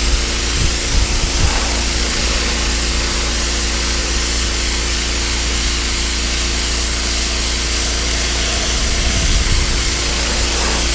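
Pressure washer running with a steady hiss of its water jet on wooden deck boards, blasting dirt, mold and mildew out of the wood, over the constant hum of its engine.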